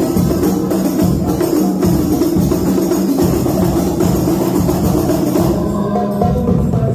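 Sholawat devotional music driven by a hadroh ensemble of rebana frame drums, many hand strokes in a fast, even rhythm over a steady low tone, with little or no singing.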